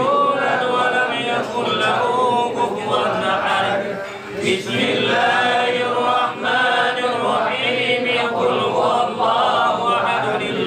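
A group of men chanting Arabic prayer recitation of a samadiyah (tahlil) in unison, with several voices overlapping in a continuous chant. There is a short break in the chant about four seconds in.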